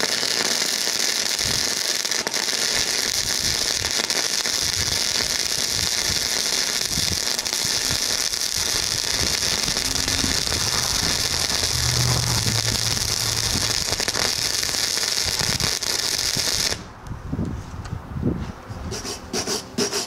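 Harbor Freight 90-amp flux-core wire welder, converted to DC output, burning a steady crackling, sizzling arc for about 17 seconds with the wire feed set low (setting 4). The arc then cuts off and a wire brush scrubs the fresh weld in short, uneven strokes.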